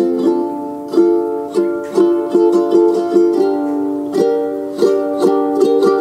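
Background music: a plucked-string tune with sharply struck notes that ring and fade, about two a second.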